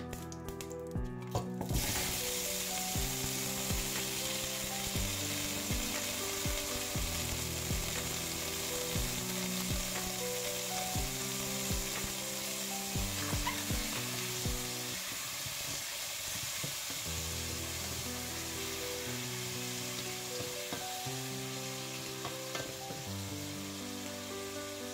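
Chopped vegetables sizzling in a hot stainless steel pot. The steady hiss starts suddenly about two seconds in as they hit the pot, with a few knocks near the start.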